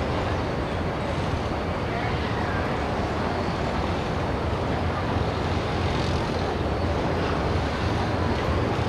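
Gas turbines and water-jet propulsion of a Boeing Jetfoil 929-115 running: a steady noise with a strong low rumble that does not rise or fall.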